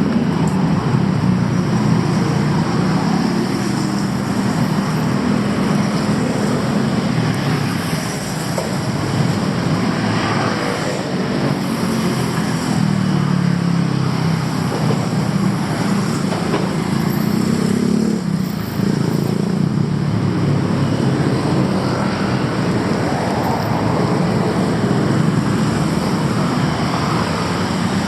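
Busy city road traffic: a steady, loud mix of vehicle engines running and passing, with no single event standing out.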